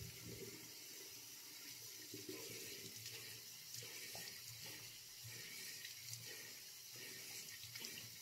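Faint, steady water running from a tap into a sink, with irregular splashing as a salt face scrub is rinsed off.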